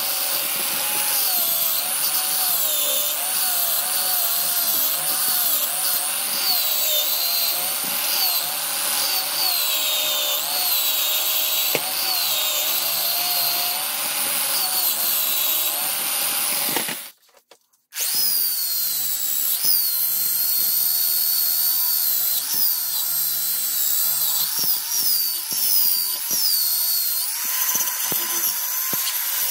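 Power tool polishing a steel spanner, its motor whine wavering up and down in pitch as the work is pressed against it. It drops out for about a second a little past halfway through, then runs on.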